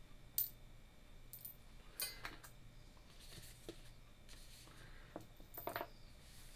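Faint, scattered clicks and clinks of small metal parts being handled, with a cluster about two seconds in and another near the end.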